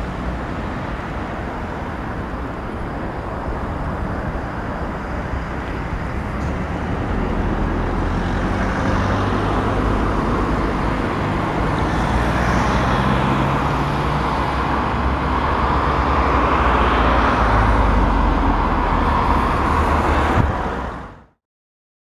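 Steady road traffic noise with cars passing, swelling a little louder now and then, cutting off suddenly near the end.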